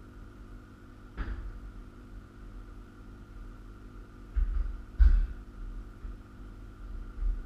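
Steel frame parts of a chainsaw mill being handled and fitted together: a few sharp metal knocks and clanks, about a second in, twice around four to five seconds in, and once near the end, over a steady low hum.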